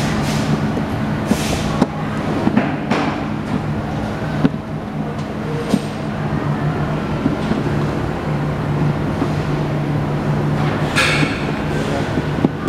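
Steady low machine hum, with a handful of short clicks and scrapes as pliers turn the spring hub of a retractable hose reel to wind up its spring. The longest scrape comes about eleven seconds in.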